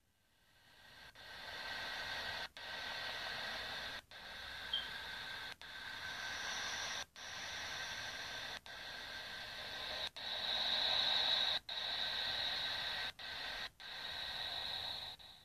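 A static-like hiss with faint steady whistling tones high up, fading in at the start and cut by brief dropouts about every one and a half seconds. It is one of the eerie 'sounds' of a planet or moon.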